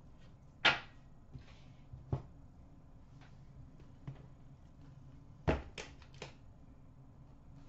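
Hands handling sealed hockey card boxes and cards on a glass counter: a few short knocks and taps, the loudest about a second in and a quick run of three near the end.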